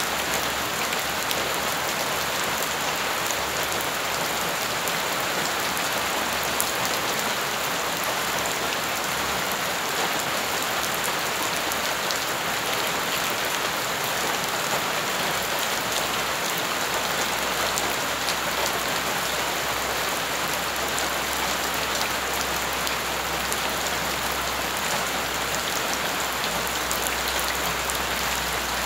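Steady rain falling on bare ground: a constant hiss of rain with many small drop splashes pattering through it.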